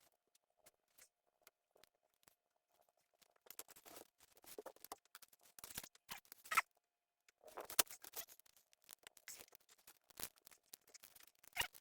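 Faint, irregular clicks, scrapes and rustles of hands and small tools handling parts, sparse at first and busier from about three and a half seconds in, over a faint steady hum.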